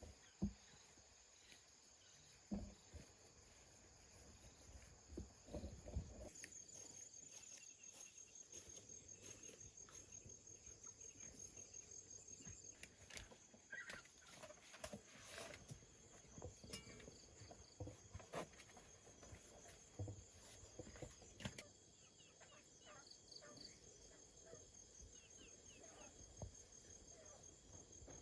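Insects trilling steadily in a rapid, high-pitched pulse, louder from about six seconds in, with a few soft knocks near the start and occasional faint clicks.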